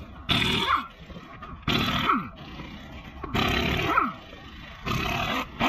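Pneumatic impact wrench on a car's wheel nuts, run in four short bursts of about half a second each, with a fifth starting at the very end. Each burst ends with a falling whine as the air motor spins down after the trigger is let go.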